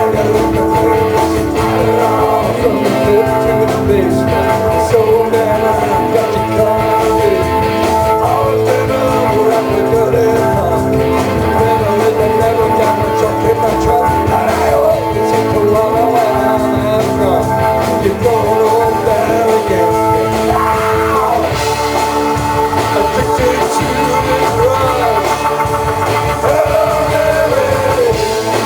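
Rock music led by guitar, with wavering, bending melody lines over steady held notes and no clear lyrics.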